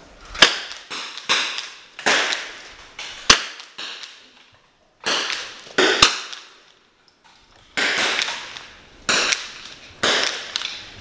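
.22 rimfire benchrest rifles firing single shots along the firing line: about a dozen sharp cracks at uneven intervals, each trailing off in a short echo.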